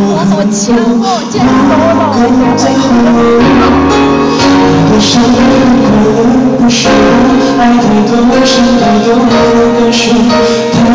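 Amplified live pop ballad in an arena, a man singing over the band's accompaniment, heard from the audience seats with the hall's echo and picked up loud on a phone's microphone.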